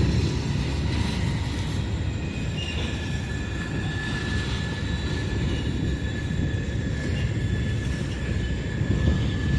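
CSX freight train of auto-carrier cars rolling past, a steady rumble of wheels on the rails. A thin, steady high squeal joins about three seconds in.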